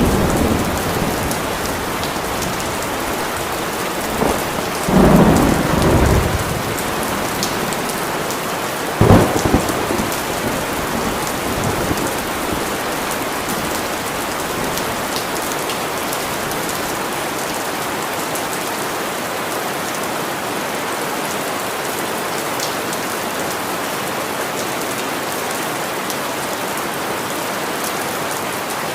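Steady rain falling, with rolling thunder rumbling about five seconds in and a sharper thunderclap about nine seconds in, then rain alone.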